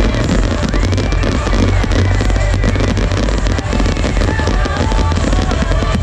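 Fireworks display: dense crackling and popping of bursting shells, over loud show music with a heavy bass.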